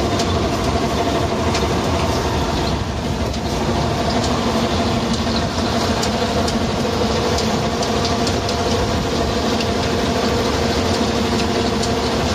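A tractor-mounted Fontana RF3 green-bean harvester running as it picks: a steady mechanical hum with several held tones and scattered light ticks, over the tractor's running engine.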